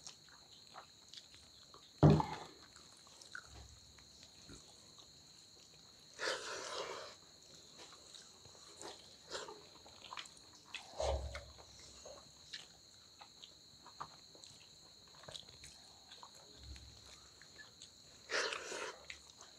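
Close-up eating sounds of two people eating rice and dal by hand from steel plates: chewing, lip smacks and fingers working the rice against the plates, in many small clicks. A loud knock comes about two seconds in.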